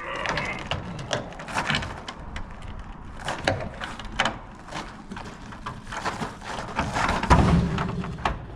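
Irregular knocks and clatter of hard objects being handled and moved, with a heavy thump about seven seconds in.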